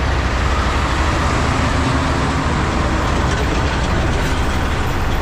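Western Star semi-truck running at road speed on wet pavement, heard from outside the cab: a steady low engine drone mixed with wind and tyre noise. An oncoming tractor-trailer goes past about four seconds in.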